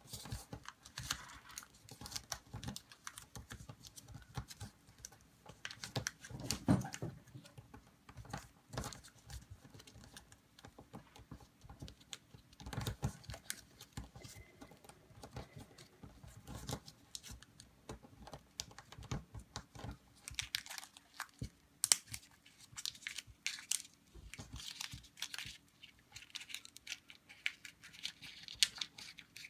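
A small sheet of origami paper being folded and creased by hand on a wooden tabletop: irregular crinkling and rustling of the paper, with scattered light clicks and taps as fingers press the folds flat.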